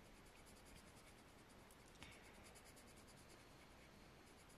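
Faint scratching of a pencil rubbing away the scratch-off coating on a paper game card, in quick repeated strokes, with a small tick about two seconds in.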